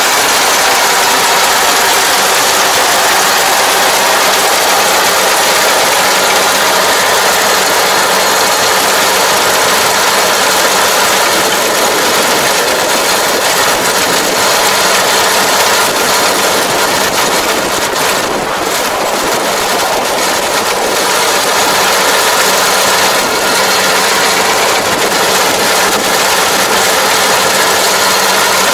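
Rice combine harvester running steadily, its engine and threshing machinery together.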